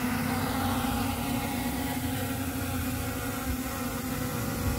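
Small FPV quadcopter's brushless motors and propellers whining at a steady pitch as it hovers low, its height held by a Matek lidar and optical flow sensor in surface mode.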